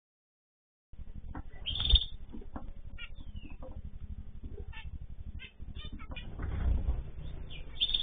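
Small aviary finches chirping in short, scattered calls after about a second of dead silence. One louder high call comes about two seconds in, and a low rustle follows a little past six seconds.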